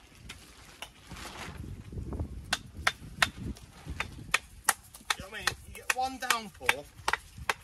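A walling hammer striking stone in a run of sharp knocks, roughly two a second, as a stone is dressed to sit flat in a dry stone wall.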